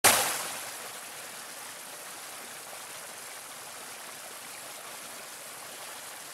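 A small stream splashing down over rocks in a steady rush of water. It cuts in suddenly and is loudest for the first second before settling.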